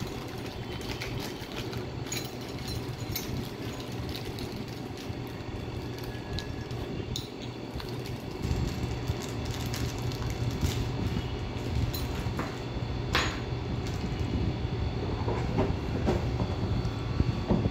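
Clear plastic parts bag crinkling and rustling in the hands as it is opened, with scattered small clicks and a sharper knock about two-thirds of the way in, over a steady low hum.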